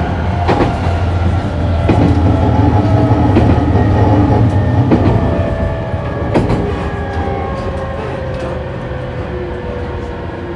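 Onboard running sound of a JR East E217-series electric train: a steady low rumble with wheels clicking over rail joints. From about six seconds in, the traction motor whine falls steadily in pitch and the sound eases as the train slows.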